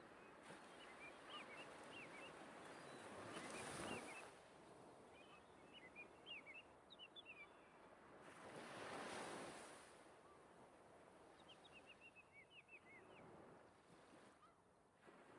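Faint nature ambience: small birds twittering in short bursts over soft swells of noise like surf washing in and out, two swells in all.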